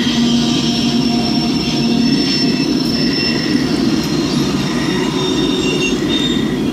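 Freight train cars, mainly covered hoppers, rolling steadily past on the rails, with high squealing tones from the wheels over the rumble.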